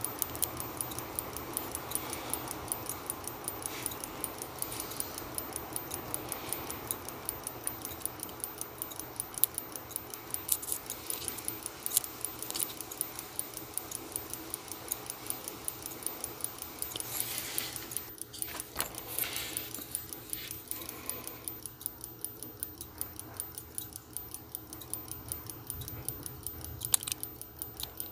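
Steady hum of a clothes dryer running in the background, with a fast, even ticking over it. A few light clicks of steel tweezers on the watch movement stand out, most clearly after about 17 seconds and again near the end.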